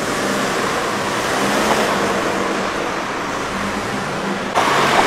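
Steady rushing noise of road traffic with a faint engine hum. The sound changes abruptly about four and a half seconds in.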